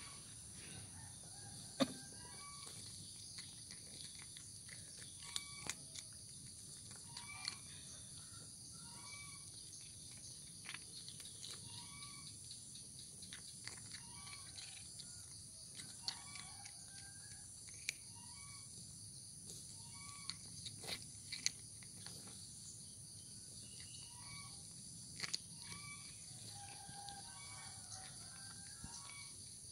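A cat crunching dry kibble, with sharp crunches scattered irregularly through. Behind it, a steady high insect drone and short bird calls repeating every second or two.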